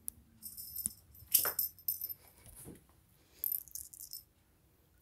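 A jingling cat toy rattling in three short bursts as the cat bats it around, the loudest about a second and a half in.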